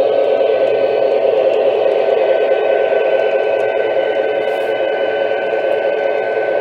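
Lionel O-gauge Union Pacific Veranda turbine and Challenger locomotives running together: a steady whir and hiss with a constant high whine, without any beat.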